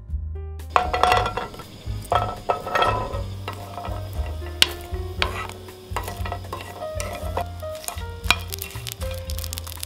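Wooden spatula stirring food in a nonstick frying pan, with repeated clacks and scrapes against the pan over sizzling. The food is garlic cloves and walnuts being dry-roasted, then dried shrimps. The clatter is thickest in the first few seconds.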